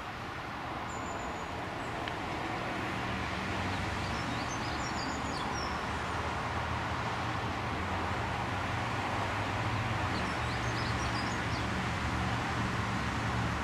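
A vehicle engine's low hum, slowly growing louder through the steady outdoor noise, with birds chirping now and then.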